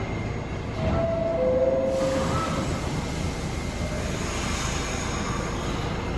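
New York City subway train running through a station, a steady low rumble with short whining tones about one and two seconds in.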